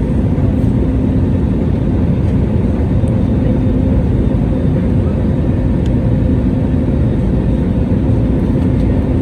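Airliner engines and rushing air during the landing: a steady low noise with a faint steady hum.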